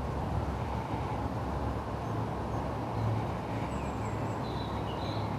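Steady low outdoor rumble, with a few faint high bird chirps near the end.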